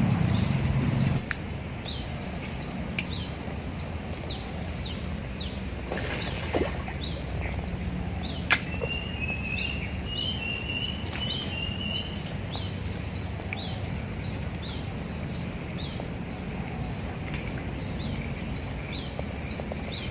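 A bird repeating a short, high, falling chirp about twice a second, with a second bird's wavering notes joining for a few seconds about halfway through, over steady low background noise. A single sharp click about eight seconds in.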